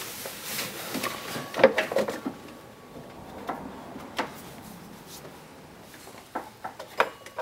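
Scattered light knocks, rubs and rustles of hands working a new serpentine belt around the engine's pulleys by hand, with the engine off. The busiest clatter comes about one and a half to two seconds in, and more comes near the end.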